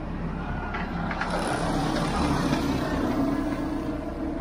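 Freightliner FL70 semi truck's diesel engine running as the truck drives, its sound rising about a second in and then holding steady.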